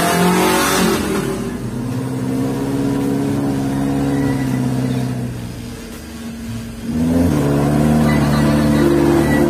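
Double-cab 4x4 pickup engine revving and pulling under load: the pitch climbs at the start, holds steady, eases off about six seconds in, then picks up again about a second later.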